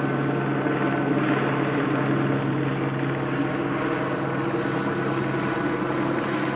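A steady engine drone with a constant low hum and no breaks.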